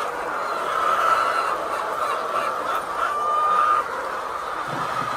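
A flock of chickens calling together in a steady chorus, with one longer drawn-out call standing out about three seconds in.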